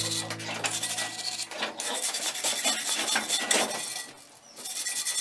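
Hand-held steel wire brush scrubbing a forged steel dog head, a former claw hammer head, in quick repeated strokes as its finishing clean-up. There is a short break about four seconds in.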